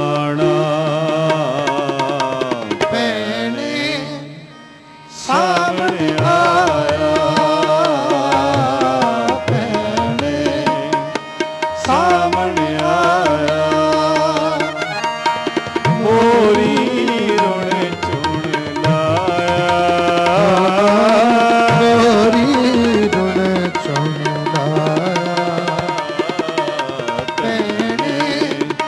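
Sikh shabad kirtan: male voices singing a melodic, ornamented line to harmonium and tabla accompaniment, with a brief lull about four seconds in.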